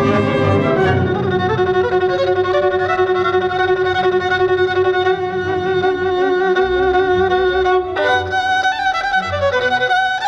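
Violin playing slow classical music over a low accompaniment: one long held note, then a new phrase of moving notes starts about eight seconds in.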